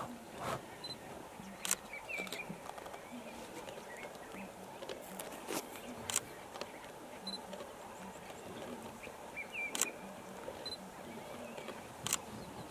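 Male lion feeding on a buffalo carcass, chewing and tearing at the meat. Scattered sharp clicks or cracks come every second or few seconds, and a few short bird chirps are heard.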